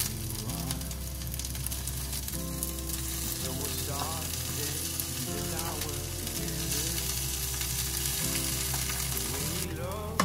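Chirimen (small dried baby sardines) sizzling in a square tamagoyaki pan on a gas burner while being stirred with chopsticks. Partway through, chopped turnip greens are tipped in and fry along with the fish.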